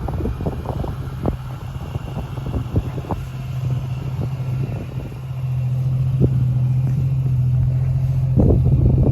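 Jeep Cherokee XJ engine running with a steady low hum that gets a little louder about halfway through, with scattered short knocks over it.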